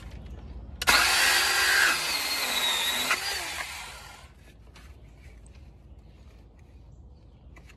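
Cordless power saw cutting through white plastic pipe. It starts about a second in, runs for about three seconds with its whine sagging under load, then stops, leaving only a few faint clicks and handling sounds.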